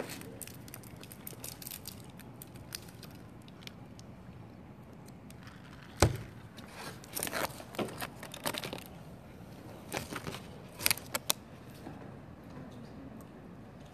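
Crinkling and rustling of a potato chip bag and lunch packaging being handled, in short bursts, with one sharp knock about six seconds in.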